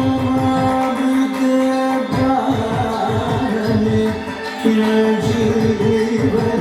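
Carnatic music for Bharatanatyam: a voice holding long notes over fast, rhythmic hand-drum strokes, with a couple of brief pauses in the drumming.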